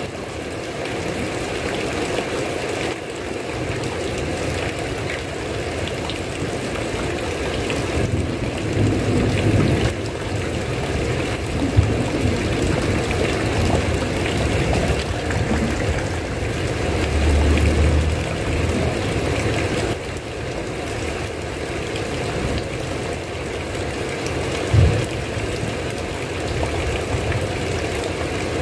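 Steady heavy rain, with low rumbles of thunder swelling up now and then and two brief sharp thumps, one about a dozen seconds in and one near the end.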